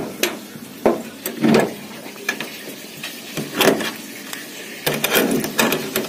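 Rusty iron chain hasp and a padlock clinking and knocking against a wooden door as the door is chained and padlocked: a string of irregular metal clicks and knocks.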